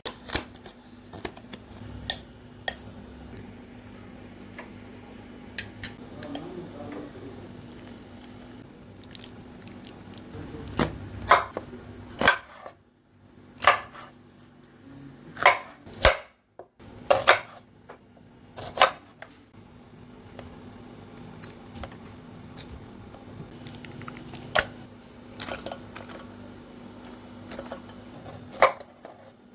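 Kitchen preparation sounds: scattered sharp knocks and clicks of utensils on a chopping board and bowls, most frequent towards the middle, over a steady low hum.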